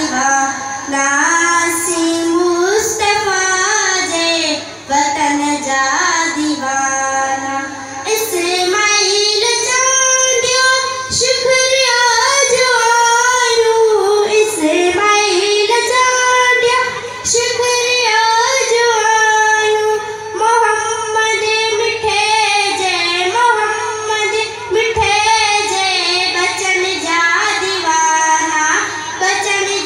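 A young girl singing a naat solo, with no instruments: a continuous unaccompanied devotional vocal line with long, wavering ornamented notes.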